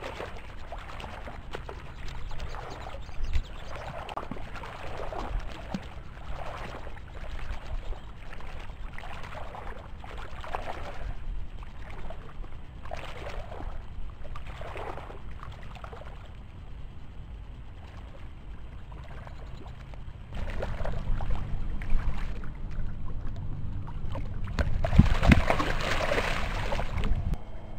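Soft whooshes every second or two, then heavier, louder noise that builds into a loud surge of water splashing for a couple of seconds near the end.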